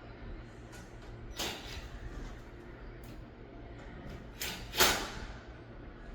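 A few short scraping, sliding sounds of the LED ceiling light fixture being handled and fitted into place. The loudest comes near the end. A low steady hum runs underneath.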